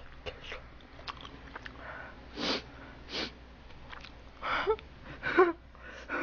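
A woman sniffing through her nose four times, in two pairs. A short muffled laugh follows behind her hand near the end.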